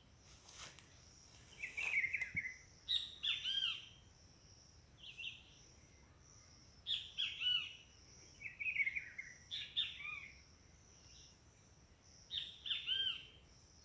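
A songbird singing short phrases of quick rising-and-falling notes, repeated every one to two seconds. A faint steady high hiss runs underneath, with a few light clicks about half a second in.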